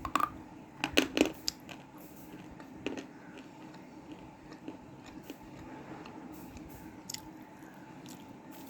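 Crunchy bites into a piece of black cement slate: a cluster of sharp cracks in the first second or so, then a few quieter crunches and small clicks as it is chewed.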